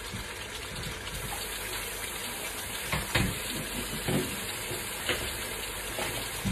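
Water running from a kitchen tap, turned on about a second in and running steadily until near the end, with a few light knocks.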